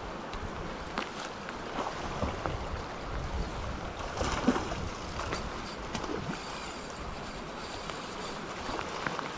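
River water rushing steadily over rocks in a shallow rapid, with small splashes and a brief louder splash about halfway through.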